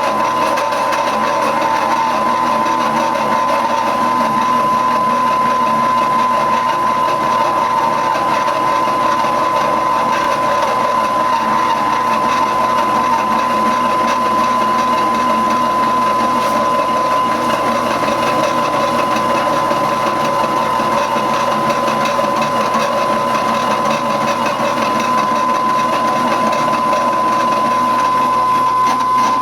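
Milling machine running a slitting saw at 140 RPM, slicing through a half-inch-thick steel bar, with a steady high-pitched whine over the noise of the mill.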